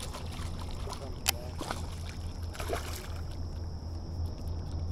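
Hooked fish splashing at the surface as it is reeled toward the boat, over a steady low hum, with one sharp click about a second and a half in.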